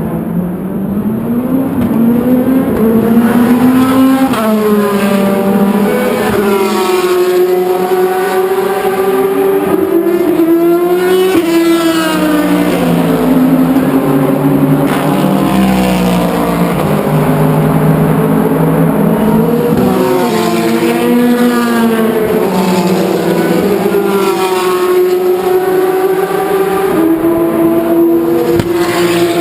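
Several endurance race car engines running hard on a circuit, overlapping. The pitch climbs through the gears and drops back at each shift, over and over.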